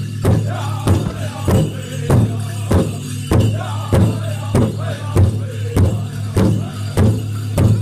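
Powwow drum group playing: a big drum struck in a steady beat, about one and a half beats a second, with the singers' voices carrying the song over it.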